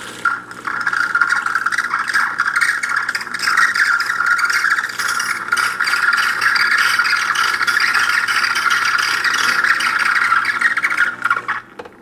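Gaggia Brera espresso machine dispensing hot water through its steam wand into a glass of espresso: a steady rushing, spattering stream that stops about a second before the end.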